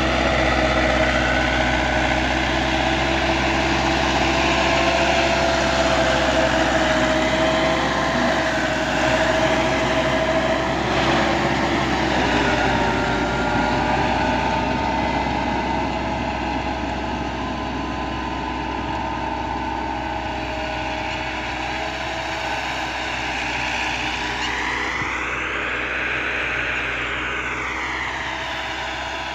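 Farm tractor's diesel engine running steadily while working a field. A sweeping change in tone rises and falls near the end.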